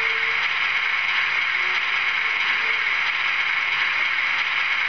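Sound decoder in a model BDZ class 07 diesel locomotive playing its diesel engine idling sound through the model's small speaker: a steady, even hiss and rumble with a thin, tinny edge.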